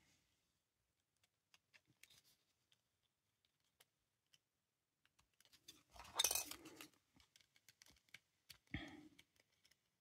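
Faint small clicks of handling, then about six seconds in a brief rasping scrape lasting about a second, and a shorter scrape with a knock near the end: a blade or file deburring a plastic model part.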